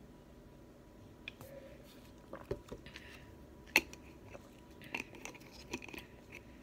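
Plastic drink bottle handled: scattered sharp clicks and crinkles of the thin plastic, the loudest about two-thirds of the way in, then a run of small clicks as the plastic screw cap is twisted back on near the end.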